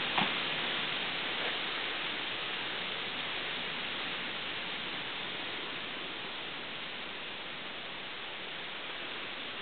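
Steady, even hiss with a brief click just after the start and a fainter one about a second and a half in.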